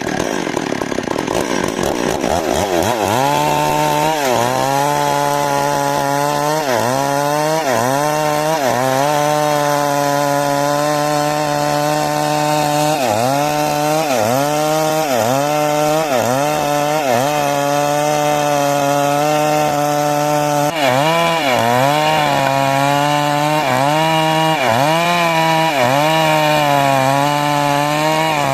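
Stihl MS 382 chainsaw running at high revs and cutting wood. The engine note sags and recovers over and over as the chain bites into the wood and frees up.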